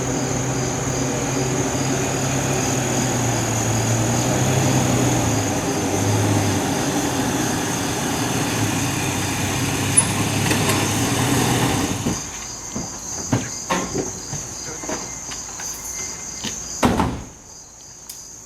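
Crickets chirping steadily, over a heavy low rumble with a hum that carries on for about twelve seconds and then drops away. After that, scattered knocks and clicks are heard.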